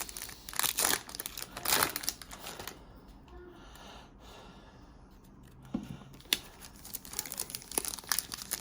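Plastic wrapper of a Mosaic football card pack being torn open and crinkled, in bursts for the first few seconds, then a quieter pause, then more crinkling near the end.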